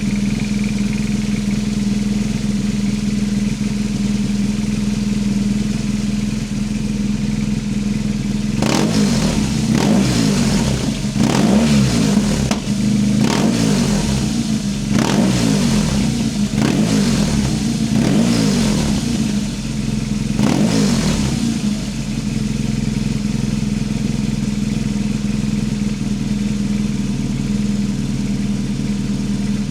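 BMW R1200 GS Adventure boxer-twin engine running through a GRmoto slip-on exhaust with its baffle removed. It idles, then the throttle is blipped about seven times in quick succession, each rev rising and falling, before it settles back to idle.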